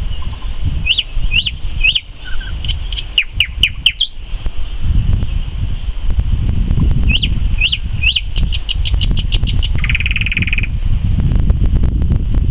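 A nightingale singing in two phrases. Each opens with three slurred whistled notes and runs into a fast series of sharp clicking notes; the second phrase ends in a short buzzing rattle. A low rumble runs underneath.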